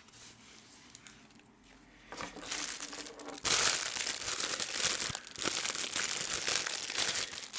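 Crinkling and rustling of packaging as a dog harness is unwrapped and handled, quiet at first, starting about two seconds in and growing louder about a second later.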